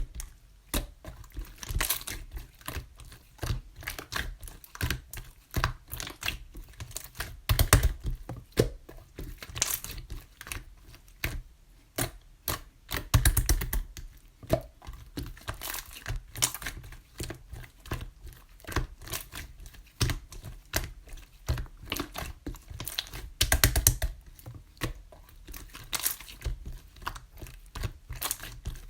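Yellow clear slime being pressed, folded and stretched by hand, giving off dense, irregular sticky clicks and pops in quick clusters.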